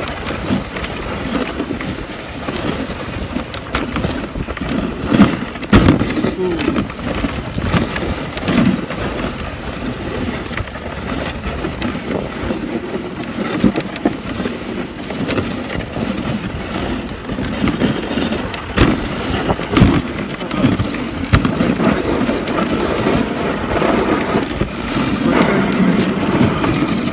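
Dog sled running over packed snow: the runners scrape and rush steadily, with scattered knocks as the sled jolts over bumps.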